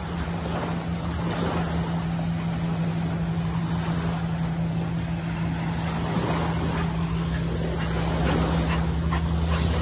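A steady low mechanical hum, like an engine running, over a haze of wind and surf.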